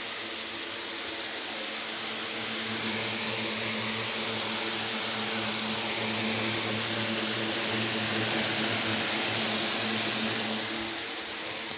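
A steady mechanical hum with a hiss over it, slowly swelling and then fading a little near the end.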